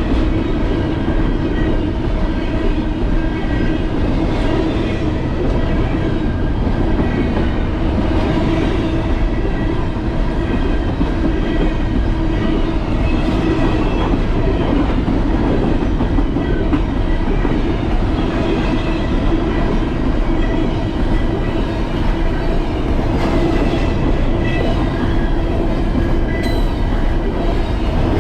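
Steady riding noise of an e-bike at a constant speed: wind and tyre rumble with a steady, unchanging hum.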